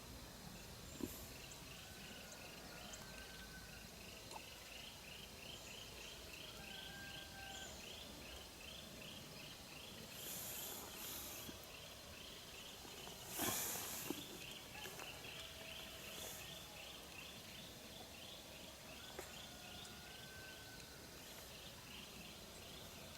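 Faint outdoor ambience: a steady train of high chirps, about three or four a second, with a few short whistled calls and a brief rustling noise around the middle.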